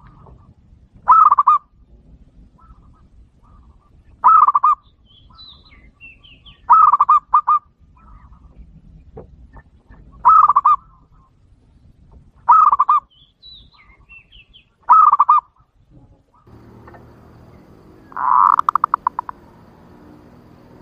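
Zebra dove (perkutut) cooing in clear, sharp phrases of the 'jontrot' type, the call used to lure male zebra doves. It repeats every two to three seconds, seven phrases in all. The last is louder and ends in a quick run of notes. Small birds chirp faintly between the phrases.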